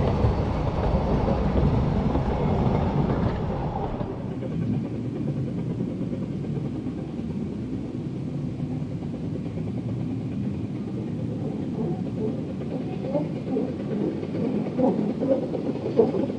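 Narrow-gauge vintage passenger carriages rolling past with a low rumble of wheels on track for about the first four seconds. The sound then drops to a quieter distant train sound, with faint irregular beats building near the end as the steam locomotive Welsh Pony approaches.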